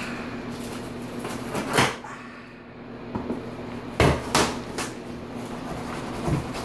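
Cardboard wheel boxes being handled and opened: a few sharp knocks and thumps, the loudest cluster about four seconds in, with one earlier and a smaller one near the end.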